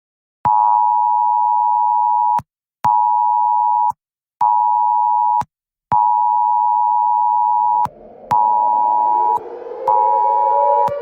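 Emergency alert tone: a loud, buzzy tone near 1 kHz switched abruptly on and off six times in a long-short-short, long-short-short pattern. From about seven seconds in, a civil defence siren winds up, rising in pitch, beneath the last two tones.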